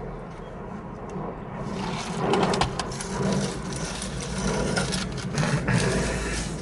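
Eating sounds: scattered clicks and crackly, rustling noise of handling and biting into a Philly cheesesteak sandwich, over a steady low hum.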